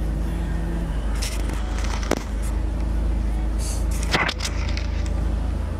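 Camera being handled and repositioned inside a car's cabin: rustling, with two sharp knocks about two seconds apart, over a steady low rumble.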